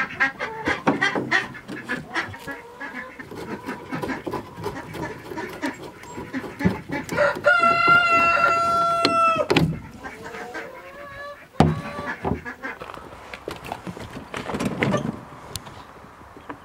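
Chickens clucking in a coop, with a long rooster crow held for about two seconds near the middle. A single sharp thump follows a couple of seconds later.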